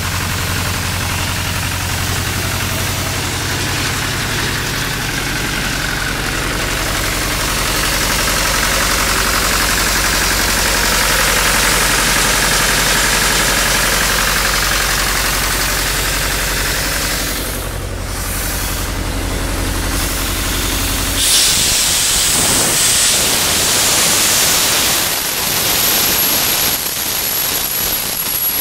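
John Deere diesel engine of an Atlas Copco XAS90 rotary screw air compressor running steadily, then shutting off abruptly about three-quarters of the way through. A hiss follows for a couple of seconds.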